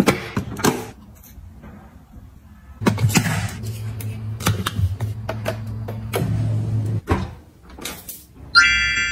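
Hard plastic clicks, snaps and knocks: a detergent tub's flip lid is opened, and dishwasher pods are set into the dishwasher's plastic detergent compartment, with a low steady hum in the middle stretch. About a second before the end a bright chime rings and fades.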